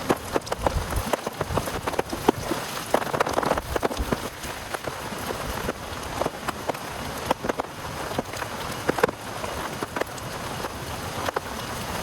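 Heavy rain falling, with many separate drops striking a nearby surface in sharp, irregular taps over a steady hiss.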